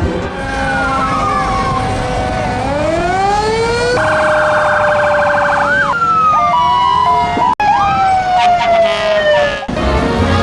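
Several emergency-vehicle sirens sounding together, their tones slowly rising and falling, with a fast warbling yelp about four seconds in. They stop abruptly near the end.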